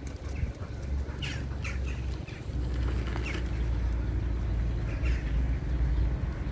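Birds chirping in short calls a few times over a steady low rumble, which grows louder about two and a half seconds in.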